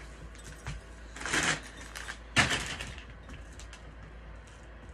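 Footsteps of shoes on a hard floor: a scuffing step, then a sharp clack, then a few lighter ticks.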